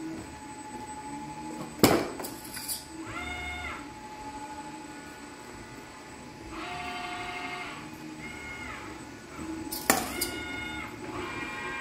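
Kawasaki industrial robot arm moving between picks, its joint servo motors whining in repeated spells that rise in pitch, hold and fall away. Two sharp clacks about eight seconds apart, the loudest sounds, come as the gripper takes and sets down a glass tube.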